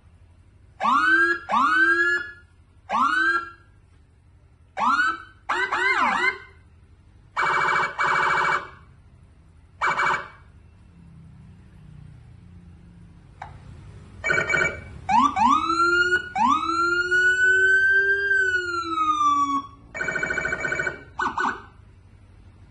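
Electronic police siren cycling through its tones in short bursts: a run of quick rising whoops, several buzzing horn blasts, and, past the middle, one long wail that climbs and then slowly falls over about three seconds, with pauses between the bursts.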